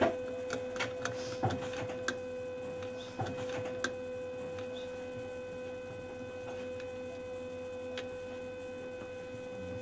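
Light clicks and taps of a steel knife blank being set into a clamping jig, mostly in the first four seconds and once more near eight seconds, over a steady machine hum.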